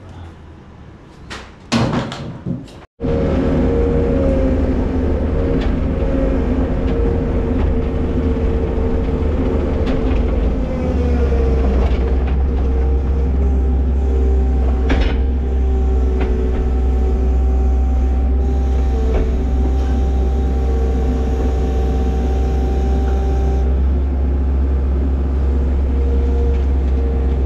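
A few sharp knocks, then from about three seconds in a skid steer loader's engine running steadily, heard from inside the cab. Its low rumble deepens about eleven seconds in.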